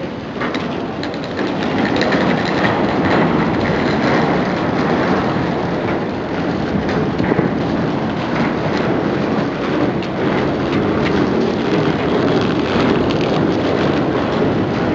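A stream of passengers walking down a ferry gangway ramp: many footsteps and rolling luggage wheels blend into a continuous rumble scattered with clicks and knocks. It grows louder about a second and a half in as the crowd nears.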